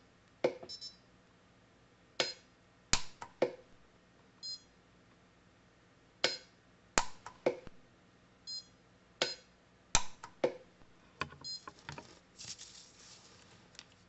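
Orion pulse arc welder firing tack welds on a stacked fountain-pen nib: about a dozen sharp snaps, mostly in groups of three, each group followed by a short electronic beep. It is set low, at 7 watt-seconds.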